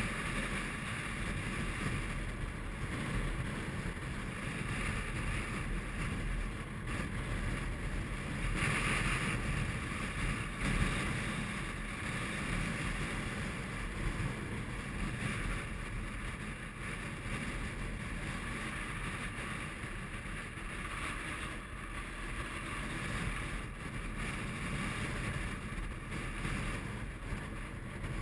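Strong wind buffeting the camera's microphone: a steady low rumble with hiss over it.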